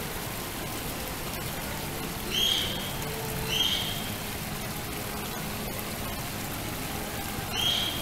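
Small garden waterfall splashing steadily into a koi pond. A short high call sounds three times over it: twice a second apart about two and a half seconds in, and once more near the end.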